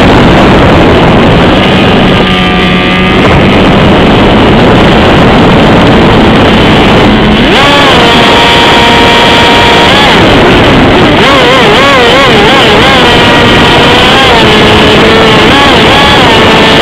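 Onboard sound of an AXN foam RC plane in flight: the electric motor and propeller whine over a loud rush of wind on the camera mic. The whine shifts pitch with the throttle, stepping up about seven seconds in and wavering up and down a few seconds later.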